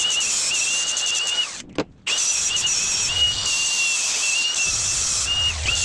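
Angle grinder grinding down cracks in a steel mounting tab to prepare it for welding: a steady high whine over a gritty hiss. It stops briefly about one and a half seconds in, then starts again.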